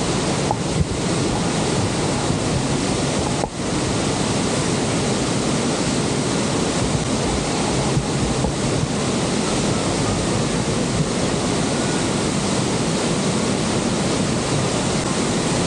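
Steady roar of the Horseshoe Falls at Niagara, a constant rush of falling water with wind buffeting the microphone. The sound dips for an instant about three and a half seconds in.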